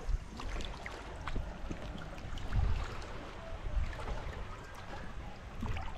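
Shallow water sloshing and trickling around a wader's legs, with small scattered splashes and clicks.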